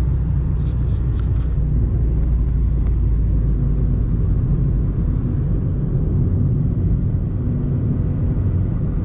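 Steady low rumble of engine and tyre noise inside a Mitsubishi car's cabin while it drives along at road speed.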